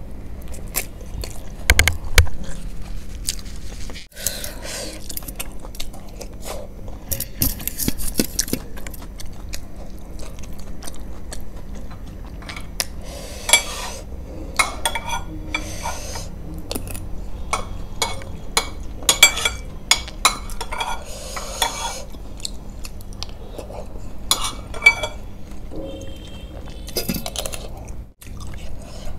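Close-up eating sounds: chewing, with a metal spoon clinking and scraping against a glass bowl of soupy masala Maggi noodles in scattered clicks.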